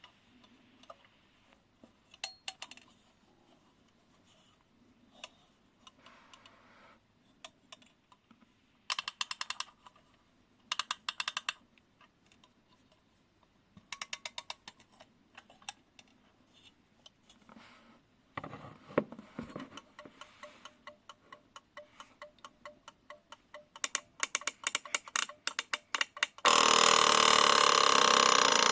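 Antique Schlenker & Kienzle brass desk alarm clock: scattered mechanical clicks and a few short bursts of rapid clicking, then steady ticking of the movement. Near the end the alarm goes off, a loud continuous ringing that keeps on.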